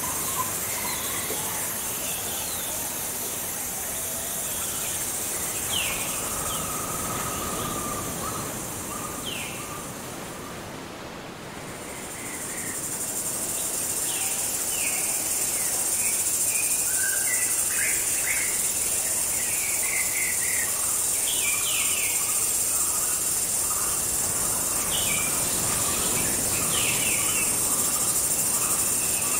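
Tropical night jungle ambience: a steady high-pitched insect drone with scattered bird chirps and short calls. The insect drone fades away about ten seconds in and comes back louder a couple of seconds later.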